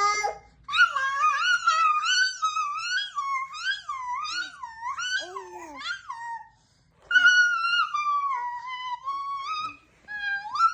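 A baby making high-pitched squealing, wavering sounds in quick up-and-down swoops, then after a short pause a longer, more level squeal that slowly falls, and a brief one near the end.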